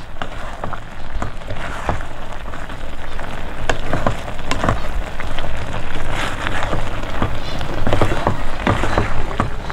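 Thick coconut-based curry bubbling and popping in a pan as it cooks down uncovered, with many small pops and a wooden spatula scraping through it.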